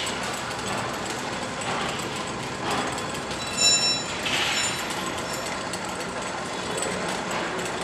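Electric chain hoist motor running steadily as it lifts a heavy steel box on its load chain during a load test. About three and a half seconds in there is a brief high ringing sound.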